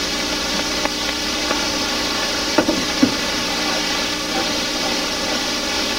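Steady hiss with a few light knocks on the kitchen counter, about a second in and twice around halfway.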